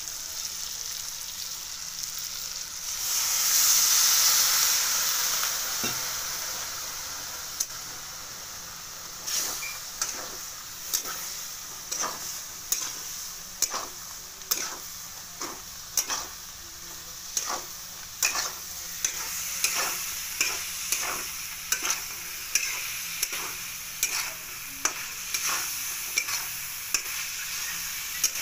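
Chicken masala sizzling as it fries in a kadai, with a surge of louder sizzling a few seconds in. From about a third of the way through, a metal spatula scrapes and knocks against the pan in a steady rhythm, a little more than once a second.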